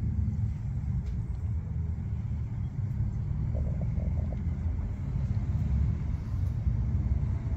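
Steady low rumble of outdoor background noise, with a few faint short tones about three and a half seconds in.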